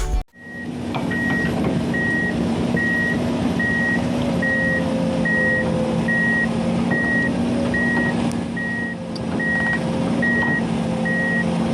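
Heavy vehicle's reversing alarm beeping evenly about twice a second, over the steady running of its engine.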